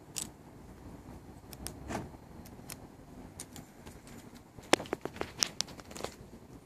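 Someone walking up to a parked car: faint footsteps and small clicks, then a quick cluster of sharp clicks and light rattles about five seconds in, like keys jangling in a hand.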